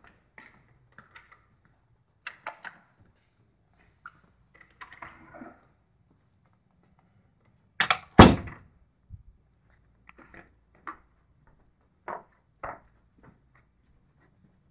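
A door shutting with two heavy thuds close together about eight seconds in, the loudest sound. Scattered light footsteps and small knocks and clicks come before and after.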